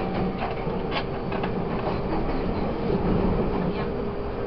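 Taiwan Railways EMU800 electric multiple-unit commuter train running, heard from on board: steady rolling rumble with a steady whine, and a few light clicks of the wheels over the track in the first second and a half.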